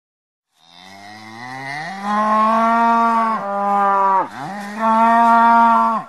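Cow mooing: a long low moo that rises in pitch and then holds steady, a brief falling dip past the middle, then a second held moo that ends sharply.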